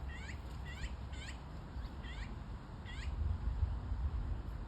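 A cat, likely a kitten, meowing repeatedly in short, high-pitched calls, about five in a few seconds.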